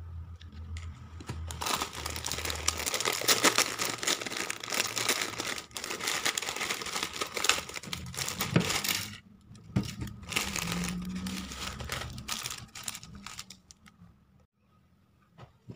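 Plastic instant-noodle wrapper and foil seasoning sachets crinkling and rustling as they are handled and opened. It comes in two long stretches, with a short pause about nine seconds in, then dies away near the end.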